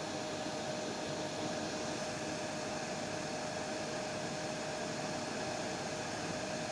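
Hair dryer running steadily: a constant rush of blown air with a steady motor whine.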